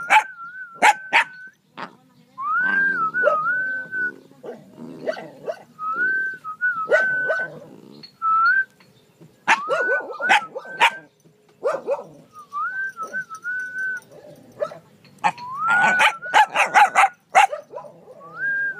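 A person whistling a short wavering call that rises and then warbles, over and over, with a dog giving a few sharp barks between the whistles.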